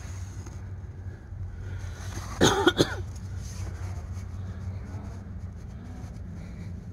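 A man coughs two or three times in quick succession, about two and a half seconds in, over a steady low rumble.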